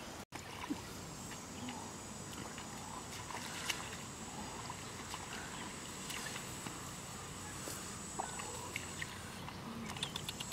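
Open rice-field ambience with a steady high buzz of insects, and faint sloshing and squelching of bare feet wading through a shallow muddy water channel. The sound cuts out briefly about a third of a second in.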